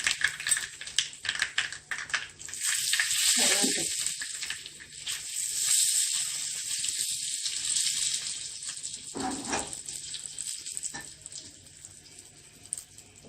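Mustard seeds, curry leaves and asafoetida sizzling and popping in hot coconut oil for a South Indian tempering. The crackling is dense at first and dies down near the end.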